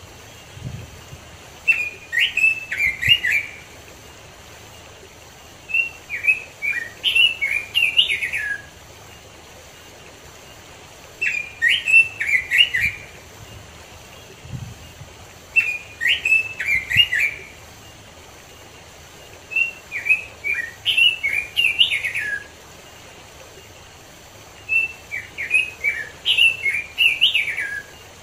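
Male red-billed leiothrix (Pekin robin) singing: six short, rich warbled phrases, one every four to five seconds, over a steady rush of stream water.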